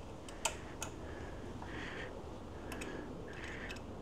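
A few light clicks and several short scrapes of an Allen key worked in a screw head, as a GPS mount bracket screw is tightened down.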